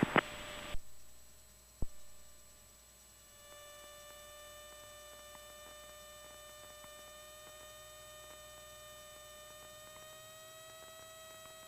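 Faint steady electrical hum with a ladder of overtones, rising slightly in pitch near the end, as picked up in a light aircraft's headset and intercom audio; a single sharp click about two seconds in.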